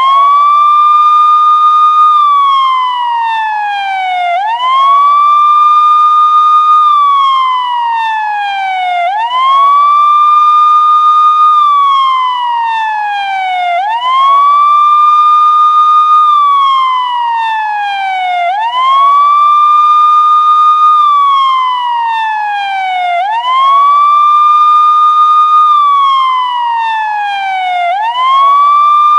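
Police siren sounding a slow wail: the pitch rises quickly, holds high for about two seconds, then slides down slowly, repeating about every four and a half seconds.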